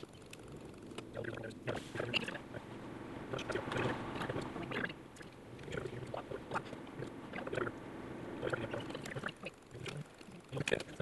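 Car cabin sound recorded by a phone on the dashboard and played four times faster: a low rumble of road and engine noise with many rapid clicks and rattles.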